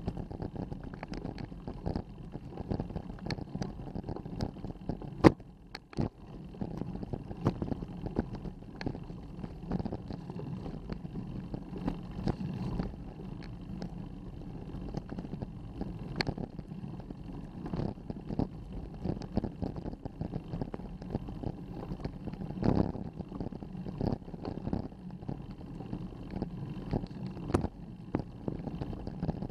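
Road bicycle climbing slowly up a steep asphalt road, heard through a bike-mounted camera: a steady low rumble from the tyres and frame with frequent small clicks and rattles, and one sharp knock about five seconds in.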